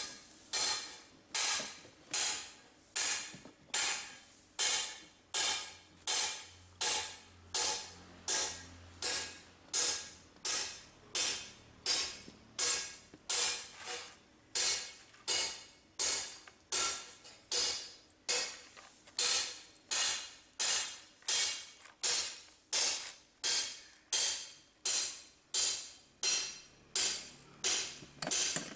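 Regular sharp clicks, about one and a half a second, each ringing briefly before dying away.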